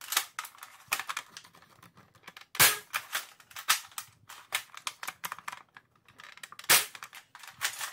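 Spring-powered Nerf Longshot blaster with a Jet Blaster Omni Kit and 10 kg spring firing foam darts through a chronograph: two sharp shots about four seconds apart. Between the shots come quicker clicks and clacks of the blaster's bolt being cycled to prime it.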